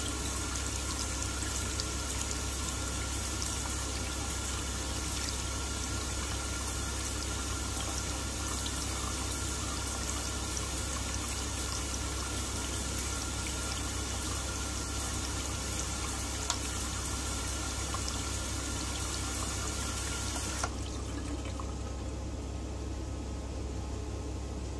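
Water from an electronic sensor faucet running steadily into a cup, then cutting off suddenly with a click about 21 seconds in. This is the faucet's automatic emergency shut-off ending a run-on caused by the cup blocking its sensor.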